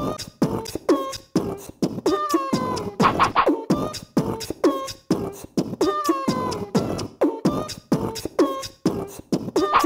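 Background music with a steady, quick beat and short, repeated vocal-like notes that slide in pitch.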